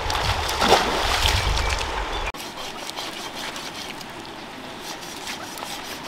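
A shallow river flowing over stones, with wind rumbling on the microphone and a brief louder splash under a second in. After an abrupt cut at about two seconds, a quieter stretch of faint, scattered ticks and scrapes from a large knife cutting a fish.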